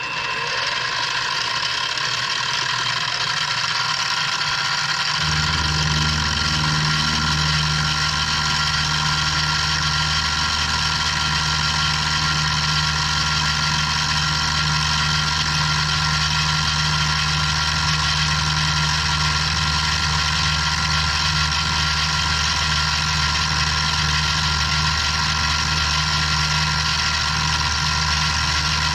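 Benchtop milling machine running with a quarter-inch end mill. The motor whine rises over the first few seconds as the spindle comes up to speed, then holds steady. About five seconds in a deeper steady hum joins, as the end mill cuts a shallow slot in a wooden block.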